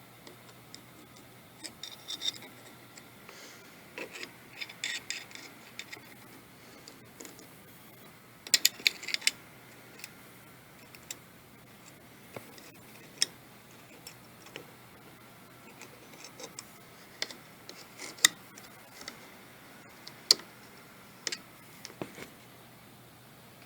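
Scattered sharp clicks and taps of small hard objects, some single and some in short rattling clusters, a few seconds apart, over a faint low hum.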